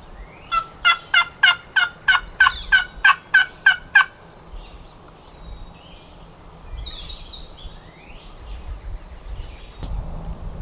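A run of about a dozen loud turkey yelps, evenly paced at roughly three a second, each note dropping in pitch, lasting about three and a half seconds. A songbird chirps faintly a few times afterward.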